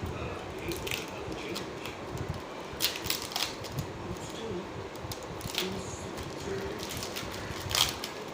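A new phone's box and packaging being handled and opened: scattered crinkles, rustles and clicks, with a sharper cluster about three seconds in and another near the end.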